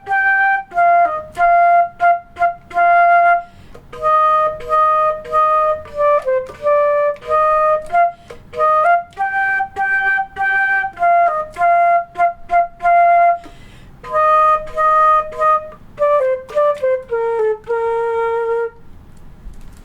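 Solo flute playing a simple beginner band melody unaccompanied, each note tongued separately with short breaks between phrases, ending on a long held lower note near the end.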